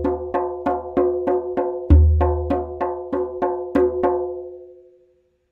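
Tombak (Persian goblet drum) played in a fast, even run of strokes, about four a second, in the pattern TmBk BkBk: deep bass tom strokes from the centre of the head, the loudest about two seconds in, among bright ringing bak strokes at the rim. The playing stops about four seconds in and the last stroke rings away.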